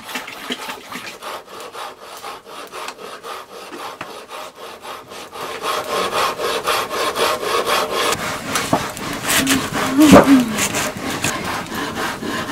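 Rapid, even scraping strokes at about four a second, growing louder about six seconds in, with one sharp knock just past ten seconds.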